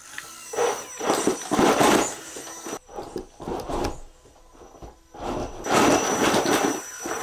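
RC crawler truck with two brushed electric motors clawing up split firewood logs on its winch line: bursts of tires scrabbling and grinding on the wood with a thin high motor whine, easing off briefly midway before a second hard push.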